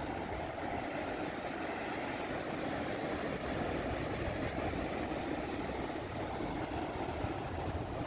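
Steady rushing wash of ocean surf on a sandy beach.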